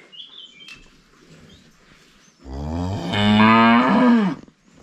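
A dairy cow mooing once, a loud call of about two seconds that rises in pitch, holds, then falls away as it ends.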